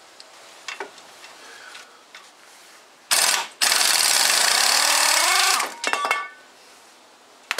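Pneumatic impact wrench running out a loosened 18 mm caliper bracket bolt: a short burst about three seconds in, then a run of about two seconds whose pitch rises as it speeds up, and a few clicks as it stops.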